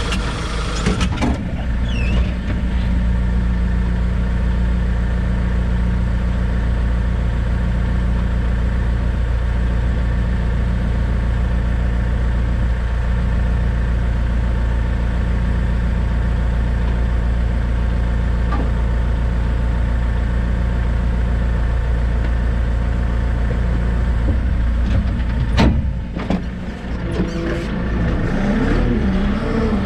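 JCB 531-70 telehandler's diesel engine heard from inside the cab, running steadily. About 26 seconds in there are a few knocks and the engine note changes, then its pitch rises and varies near the end.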